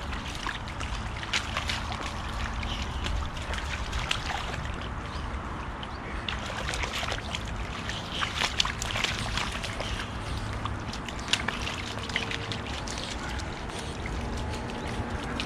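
Two boxer dogs wading and splashing in a shallow rain puddle: water sloshing, with many short splashes and drips as they paw and nose a rubber ball in the water.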